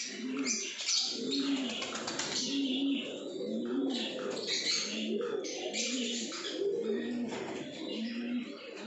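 Pigeons cooing over and over, a short rising-and-falling coo about once a second, with bursts of high-pitched chirping over them.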